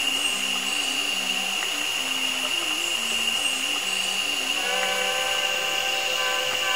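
Steady high-pitched drone of rainforest cicadas. Under it runs a line of low notes stepping up and down, and a steady chord of higher tones comes in about two-thirds of the way through.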